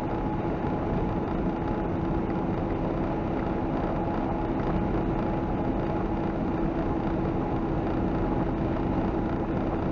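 Inside a truck's cab at highway speed: steady engine drone and road noise with a constant low hum.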